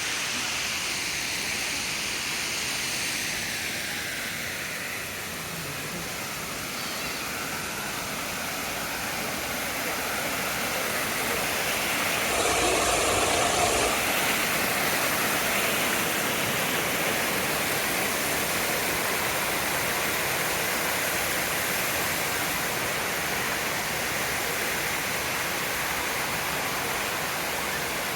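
Steady rush of cascading water, swelling briefly about halfway through.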